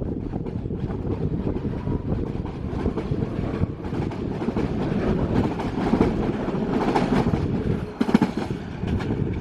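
PATCO Speedline train of Budd-built stainless-steel rapid-transit cars running past the platform and pulling away, with wheels clacking over the rail joints and the sharpest clack near the end. Wind buffets the microphone throughout.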